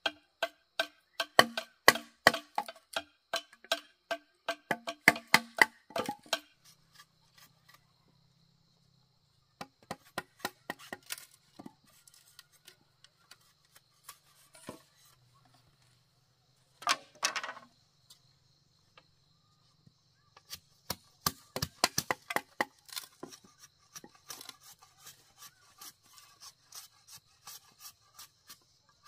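Machete blows striking and splitting bamboo poles. Each blow is a sharp knock with a hollow ringing tone, coming in quick runs for the first six seconds, sparse in the middle, then in quick runs again over the last nine seconds.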